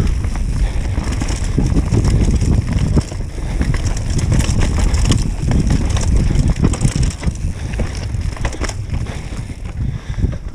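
Mountain bike riding fast down a dirt trail strewn with dry leaves, heard from a camera on the rider: wind buffeting the microphone, tyres rolling over dirt and leaves, and the bike rattling and knocking over bumps.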